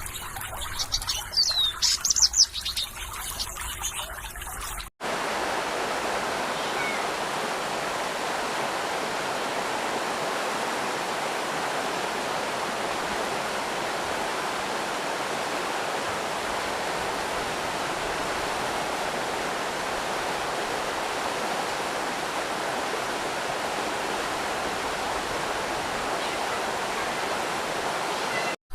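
Birds chirping over trickling water for the first few seconds, then an abrupt change to a steady, even rush of running water that holds unchanged for the rest of the time.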